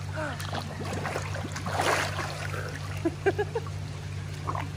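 Pool water splashing and lapping around a swimmer carrying a chimpanzee on her back, with a few short, soft vocal sounds and a steady low hum underneath.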